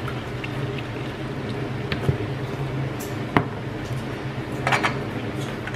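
Ketchup squeezed from a squeeze bottle into a plastic measuring cup and emptied into a stainless steel bowl, with squishing and scraping and two sharp knocks about two and three and a half seconds in. A steady low hum runs underneath.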